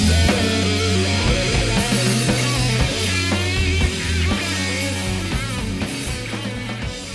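Rock music with guitar, slowly fading out.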